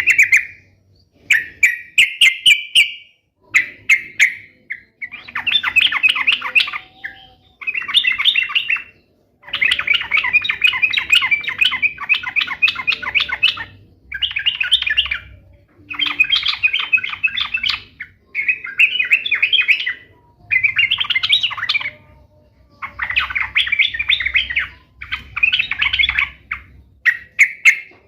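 Yellow-vented bulbul (trucukan) singing energetically: one bubbling, chattering song phrase after another, each a second or two long with short pauses between.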